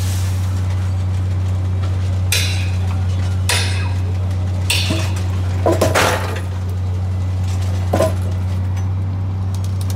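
The NTC track-laying machine's engine runs with a steady low drone. Over it come a handful of sharp metallic clinks and clanks, the loudest cluster a little past the middle and one more near the end.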